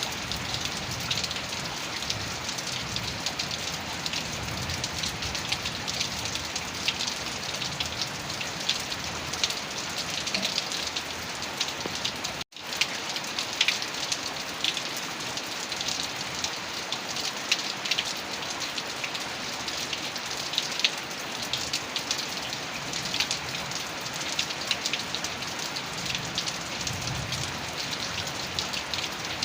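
Heavy rain falling steadily, dense with the ticks of individual drops hitting a surface. The sound cuts out completely for an instant about twelve seconds in.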